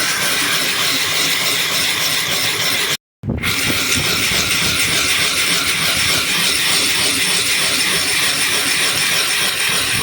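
Cut glass bottle rubbed back and forth on wet 60-grit silicon carbide paper, a steady loud rasping scrape. It breaks off completely for a moment about three seconds in, then carries on.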